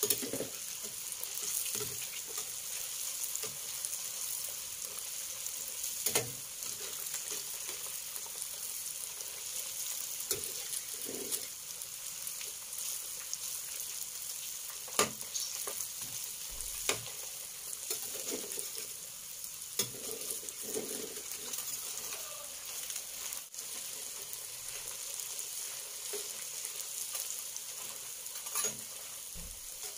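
Peanut rempeyek crackers deep-frying in hot oil in a stainless steel wok, a steady sizzle. A metal spatula scrapes and taps against the wok a few times as it turns the crackers.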